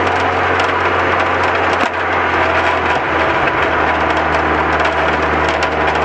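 Lotus Elise S2 engine running steadily under way, heard through heavy wind and road noise with a constant crackle on the microphone. About two seconds in the level dips briefly, and after that the engine note holds at a slightly lower pitch.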